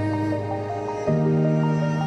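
Calm new-age background music: sustained low chords that change about a second in, under a light, evenly repeating melody of short notes.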